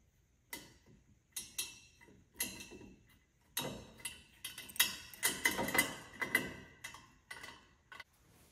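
Metal lantern parts being handled: an irregular series of clicks, clinks and light knocks, densest in the middle, some with a faint metallic ring.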